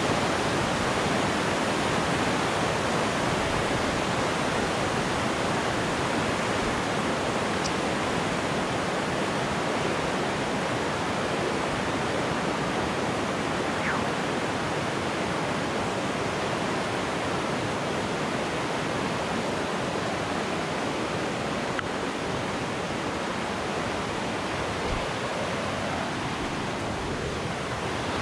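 Rushing river rapids below, a steady wash of water noise that eases off slightly as the far bank is reached.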